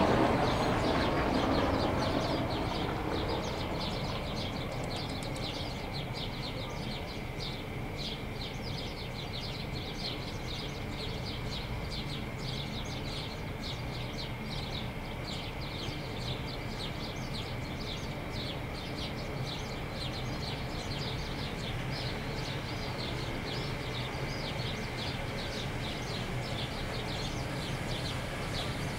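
Small birds chirping rapidly and continuously over a steady low rumble of distant traffic. A louder passing rumble fades away over the first two or three seconds.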